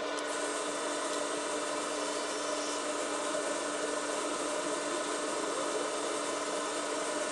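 SawStop table saw running steadily with a constant motor hum while the blade cuts wood that is being pushed through with a push block.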